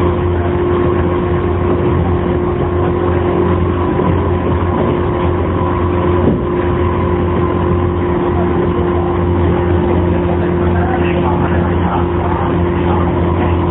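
Running sound inside a JR 115-series electric multiple unit motor car (MoHa 115-2021), a steady hum with rail noise and the car's air conditioning over it. A wind-like noise is mixed in, which the recorder takes for an abnormal noise from this car.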